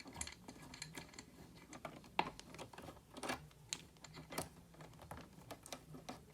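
Scattered light plastic clicks and ticks of wires being handled and pulled apart, disconnecting the old smoke alarm's wiring harness, with a few sharper clicks in the middle.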